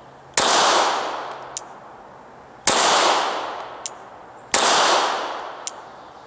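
Three single pistol shots from a Glock 26 subcompact 9mm, fired about two seconds apart in slow aimed fire; each crack fades out over about two seconds, with a faint sharp tick about a second after each shot.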